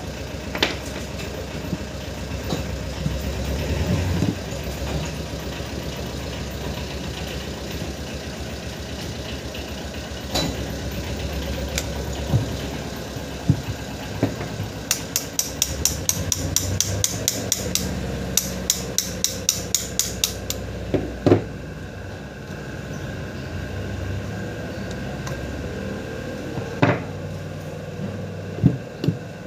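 Metal clicks and knocks from a crane PTO solenoid being handled and taken apart on a bench, with a run of quick, even taps at about four a second for some five seconds past the middle, over a steady low machine hum.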